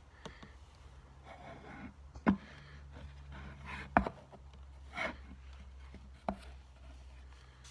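Small hard parts of a slimline pen kit being worked together by hand: short scraping rubs and light taps, with three sharp clicks standing out about two seconds apart, over a low steady hum.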